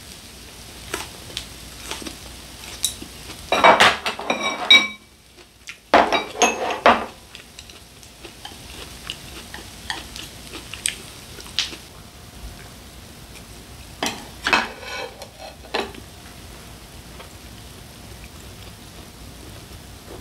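Chopsticks clicking and scraping against a plate and a tabletop griddle loaded with grilled beef intestines, in three busy clusters about four, six and fifteen seconds in, with scattered single clicks between. A faint sizzle from the griddle runs underneath.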